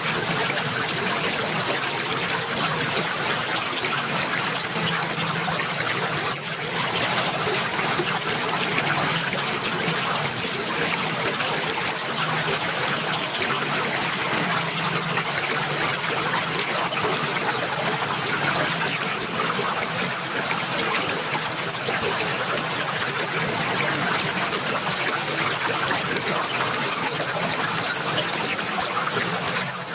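Running water trickling and flowing steadily, an even rushing noise that does not let up.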